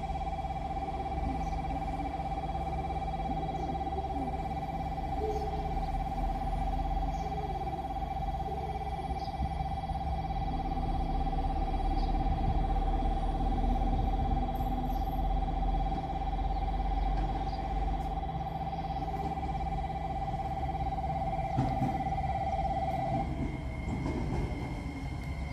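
Electric station bell ringing continuously to warn of an approaching train, cutting off about 23 seconds in. Under it, the low rumble of the arriving limited-express train grows toward the end.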